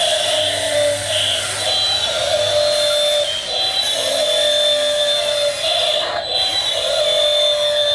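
Small electric motors of a 1/16-scale Double E E598 RC excavator whining steadily. The pitch shifts and dips briefly every second or so as different functions are worked.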